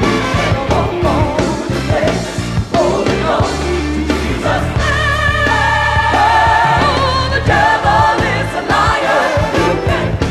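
Gospel song with a solo singer and choir over a band, held notes with wide vibrato in the middle.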